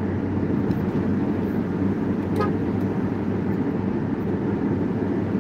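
Steady road noise inside a moving car's cabin at highway speed: a continuous low tyre-and-engine rumble with a steady hum, and a brief high blip about two and a half seconds in.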